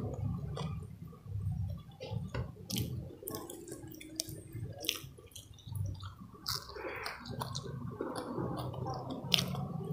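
Close-up wet chewing and lip-smacking of a person eating grilled fish and rice, with many sharp mouth clicks scattered throughout and one louder click near the end.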